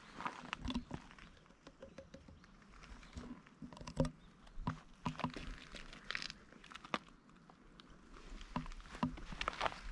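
Scattered light clicks, taps and rustling as a tabby cat steps along a fence rail and is petted by hand.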